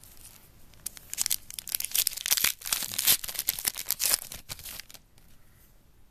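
A foil trading-card pack wrapper being torn open and crinkled by hand, a dense crackling run of about three and a half seconds that fades to quieter handling noise.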